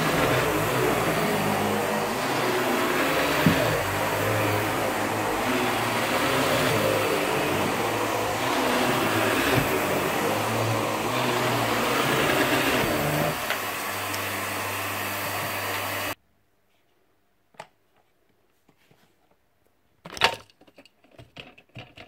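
Upright vacuum cleaner running steadily as it is pushed over carpet. The noise cuts off suddenly about sixteen seconds in, and a few scattered clicks and knocks follow near the end.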